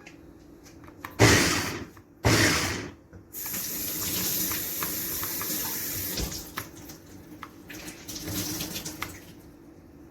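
Kitchen tap running into a sink: two short loud gushes, then a steady stream for a few seconds, then uneven splashing with small clicks and clinks.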